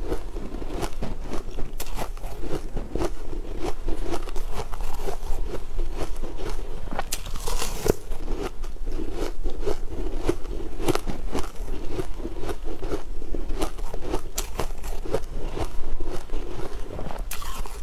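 Close-up crunching and crackling of frozen, frost-coated blocks being bitten and chewed, with a dense run of sharp cracks and a louder crunch about seven seconds in.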